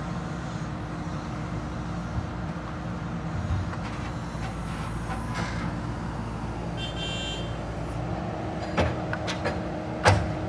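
Heavy diesel machinery running steadily, with several sharp metallic knocks near the end, the loudest just before it stops.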